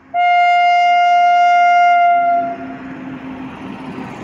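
Indian Railways WAP-5 electric locomotive sounding one loud, steady horn blast of about two seconds. The horn is followed by the rumble of the train rolling slowly past as it departs.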